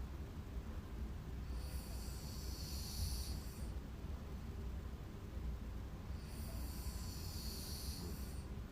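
A sleeping person snoring, two long noisy breaths about five seconds apart over a steady low rumble.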